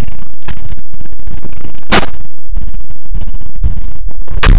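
Heavily distorted clatter and scraping of objects being handled and set down close to the microphone, with two loud knocks, one about two seconds in and one near the end.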